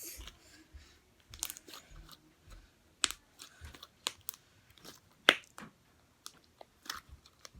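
Butter slime being squished and worked by hand, giving irregular sticky clicks and small pops, the loudest about five seconds in.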